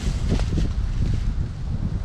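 Wind buffeting the microphone in a steady low rumble, with a child's footsteps crunching through dry fallen leaves.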